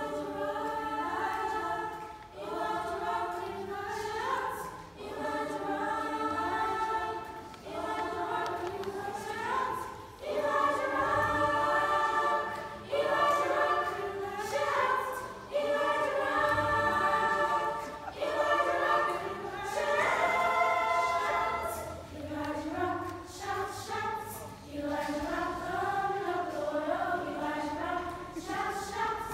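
Children's choir singing a gospel spiritual in parts, in phrases of a couple of seconds with short breaks between, growing louder in the middle and easing off near the end.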